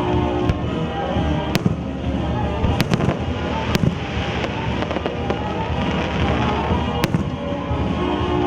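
Aerial fireworks going off in scattered sharp bangs, a quick cluster around three seconds in and a last one near seven seconds, over the show's music soundtrack.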